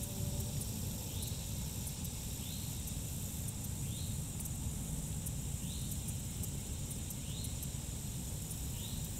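Insects droning steadily in a high register, with a short rising-and-falling call repeating about every one and a half seconds, over a low steady rumble.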